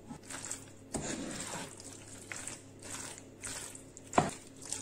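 Wooden spatula stirring pasta and chicken through thick white sauce in a coated pan: soft wet squelching and scraping, with one sharp knock of the spatula near the end.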